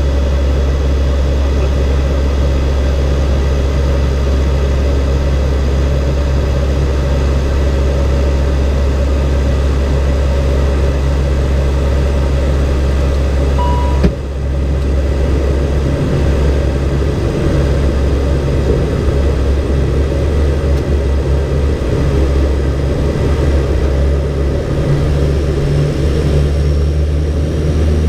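Steady low drone of an ATR 42-320's twin PW121 turboprops and propellers, heard inside the cockpit in flight. Just before halfway there is a short beep and a click, the drone dips briefly, and its low pattern changes when it comes back.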